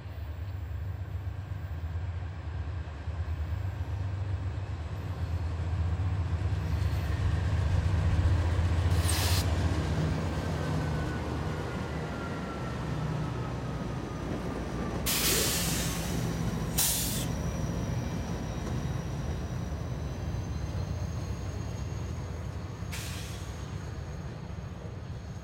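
A CSX GE C40-8 diesel-electric locomotive and a trailing EMD SD40-2 passing at close range, their diesel engines running in a low rumble that swells as they come by. Several short hisses of air break through, typical of a freight train's air brake system.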